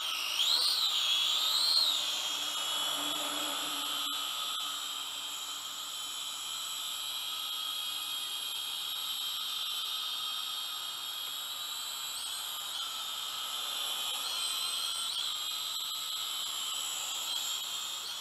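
Syma X5UW quadcopter's small coreless motors and propellers whining. The pitch wobbles up and down and is loudest in the first two seconds as it lifts off, then settles to a steady high whine.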